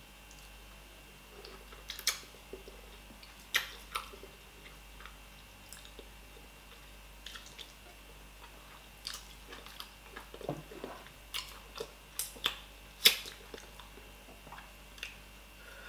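Close-up eating sounds of a person chewing fish and fufu: wet chewing with irregular sharp clicks and smacks, the loudest about thirteen seconds in.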